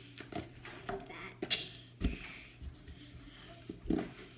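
Hands brushing eraser crumbs across a sheet of paper on a table, with a few short knocks and clicks; the strongest are a sharp click about a second and a half in and dull thumps about two and four seconds in.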